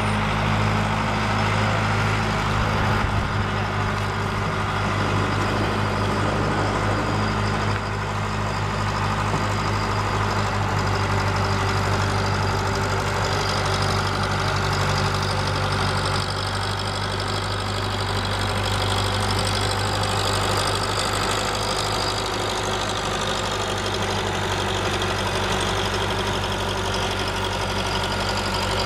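Aircraft towing tractor's engine idling with a heavy, knocking drone, its pitch shifting a few times as it moves.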